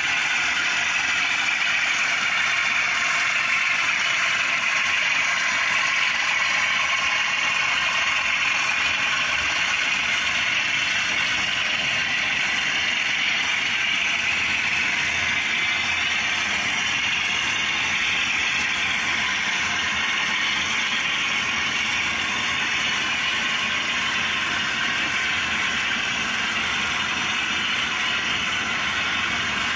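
DCC sound decoders in two model Class 37 diesel locomotives play a steady English Electric diesel engine drone through their small onboard speakers.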